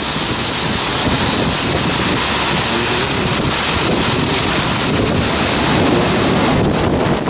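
Strong thunderstorm outflow wind blasting over the microphone in a steady rush of noise, with a few brief knocks near the end.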